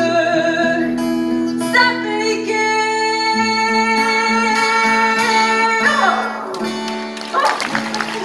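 Acoustic guitar and held sung notes closing a song, with applause starting near the end.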